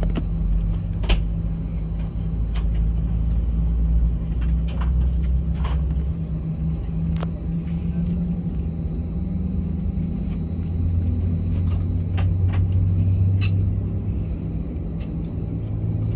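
Cabin noise inside an Airbus A320 on the ground before takeoff: a steady low hum from the aircraft's systems, its pitch shifting a little around the middle, with occasional light clicks and knocks.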